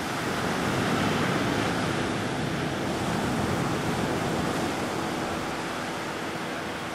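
Ocean surf breaking and washing ashore: a steady rushing that swells a little about a second in.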